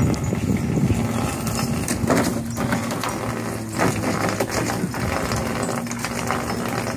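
Small dog splashing and stepping in shallow water in a plastic kiddie pool, a handful of separate splashes from about two seconds in, over a steady low mechanical hum.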